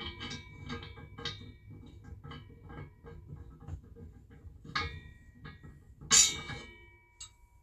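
Steel harness bar parts and hardware clinking and knocking together as they are fitted, several hits leaving a ringing metallic tone; the hardest knock comes about six seconds in.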